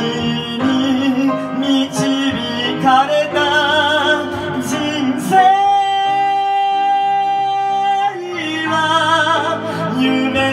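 A solo singer belts a Japanese-language musical-theatre ballad with wide vibrato over piano accompaniment. About halfway through, one long high note is held for nearly three seconds, and then the melody resumes lower.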